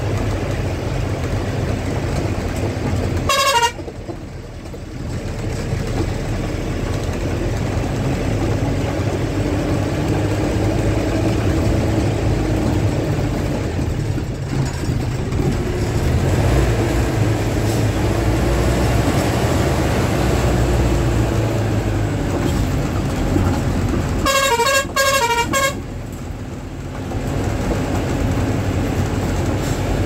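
A road vehicle's engine and road noise run steadily, heard from inside the cabin while driving. Its horn sounds once briefly a few seconds in, and later in a quick burst of several toots.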